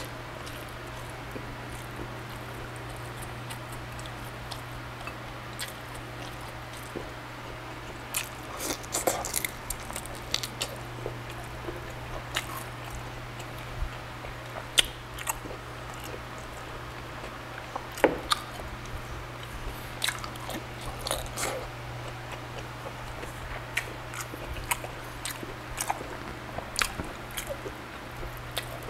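Close-up chewing and biting of grilled pork belly with rice: irregular crisp crunches, wet smacks and clicks from the mouth, thickest in a few bursts. A steady low hum runs underneath.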